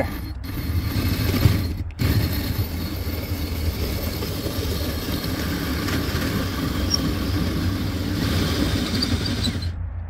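Cordless DeWalt drill running a hole saw through the soft firebrick wall of a pottery kiln, a steady motor whir with the saw cutting. It stops for a moment about two seconds in, then runs on and stops just before the end.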